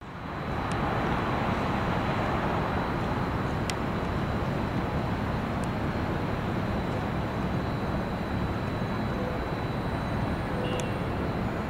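Steady rumble and hiss of a vehicle driving along a street, fading in at the start, with a faint steady high whine and a few light ticks.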